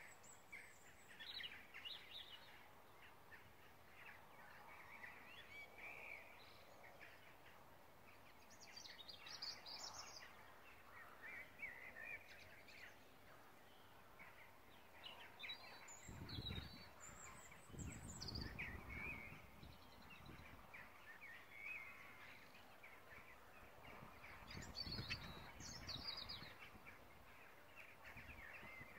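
Faint outdoor ambience with scattered bird calls and chirps. Two spells of low rumble come about halfway through and again near the end.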